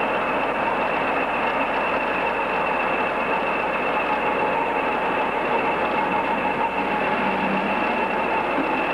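Class 20 diesel locomotive, its English Electric eight-cylinder engine running steadily as it moves slowly past at close range, with a steady high whine throughout.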